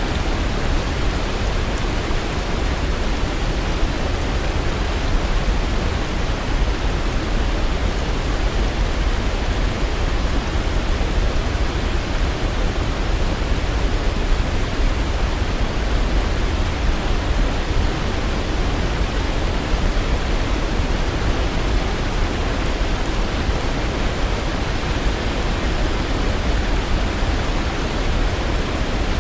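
Waterfall running, a steady, unbroken rush of falling water with deep rumble underneath.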